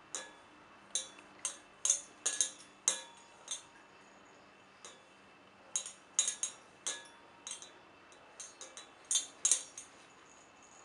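Metal bowl struck again and again in an uneven rhythm, some strikes in quick runs, each a sharp clink with a short ring.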